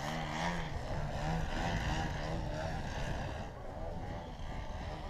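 Engine and propeller of a radio-controlled aerobatic model airplane running in flight, its pitch rising and falling as it throttles through manoeuvres.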